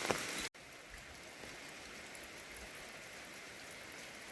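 Rain falling, with a few sharp drips in the first half second. The sound cuts off sharply about half a second in and gives way to a quieter, even hiss of rain.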